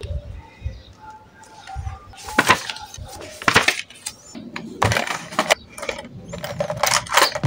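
Stationery handled on a desk: a planner's cover and pages knocked and flattened, a series of sharp clicks and knocks, then pens clinking together in a glass jar near the end.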